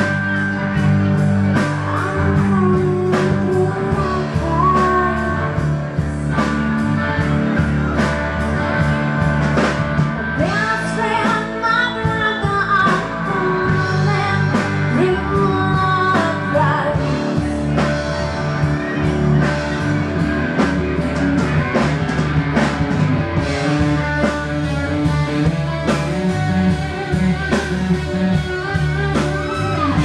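Live band playing a song: a woman singing lead over acoustic guitar, electric guitar, bass and drum kit.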